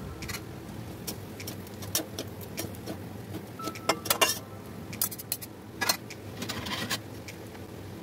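Metal spatula and fork clinking and scraping against a metal wok while chow mein noodles are tossed and mixed, in scattered irregular clicks.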